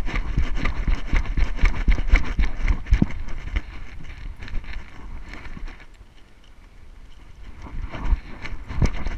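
A dog running across grass, heard from a camera strapped to its back: quick, uneven thuds of its strides and jolts of the rig, with wind on the microphone. It goes quieter for a couple of seconds about six seconds in, then picks up again near the end.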